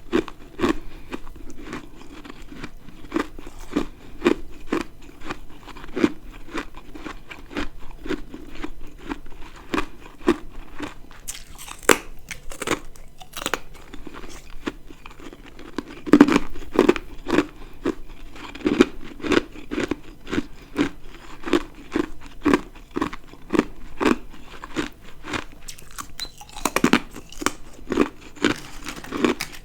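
A person biting and chewing ice close to the microphone: a steady run of crisp crunches about one or two a second, with a few louder fresh bites in the middle and near the end.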